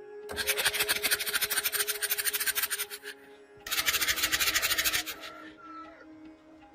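Rapid, rhythmic scraping or scrubbing strokes in two bursts, the first about two and a half seconds long and the second shorter, over faint steady background music.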